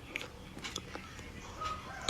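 A person chewing a mouthful of chocolate dessert close to the microphone, with scattered crisp crunches and crackles. A faint steady tone comes in near the end.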